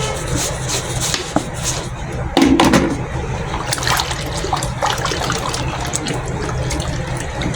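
Liquid sloshing and splashing in a bucket of hair-conditioner mixture, with scattered light knocks, over a steady low hum; louder for a moment about two and a half seconds in.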